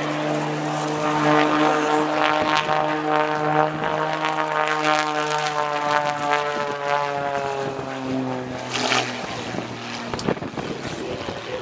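Extra 260 aerobatic monoplane's piston engine and propeller running loud and steady in display flight, the drone slowly sliding down in pitch. It drops away about nine seconds in, leaving a rougher rushing noise.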